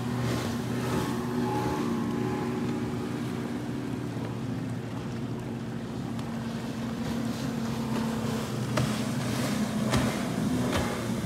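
Outboard motor of a bass boat running steadily, with water and wind noise and a few brief knocks in the second half.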